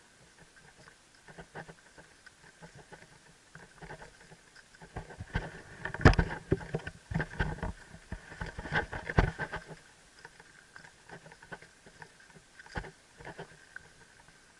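Irregular crunching and knocking as a horse and a person walk through dry crop stubble, mixed with rubbing and knocking from a helmet-mounted camera that is too heavy for the helmet. The knocks come thickest and loudest between about five and ten seconds in.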